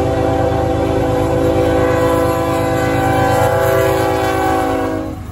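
Diesel freight locomotive's multi-chime air horn blowing one long sustained chord over the low rumble of the passing train. The horn cuts off abruptly near the end, and the rumble carries on.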